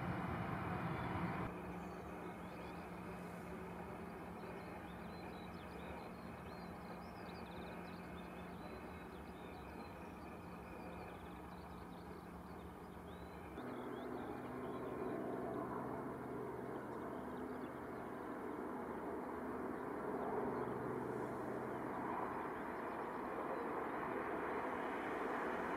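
Airbus A320's CFM56 jet engines running at taxi power, heard from a distance as a steady rumble with a low hum, growing louder toward the end. Small birds chirp over it for the first half.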